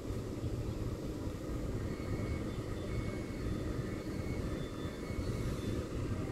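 EMU3000 electric multiple unit pulling slowly away from the station, a steady low rumble with a faint high whine joining about two seconds in.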